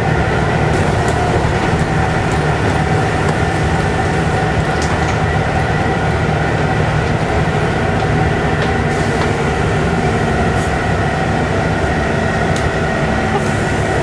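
Volvo B7TL double-decker bus on the move, heard from inside the saloon: the six-cylinder diesel engine and driveline run steadily, a constant low drone with a few steady whining tones above it and the odd faint rattle.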